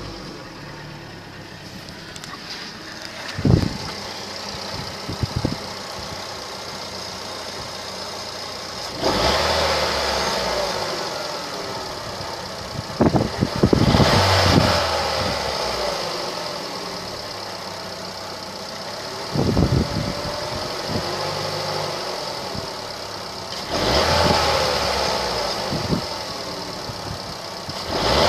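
Opel Astra J 1.4 Turbo four-cylinder petrol engine running shortly after starting, with an extraneous noise that swells louder several times and fades, plus a few brief sharp knocks. The noise went away for good after an oil change.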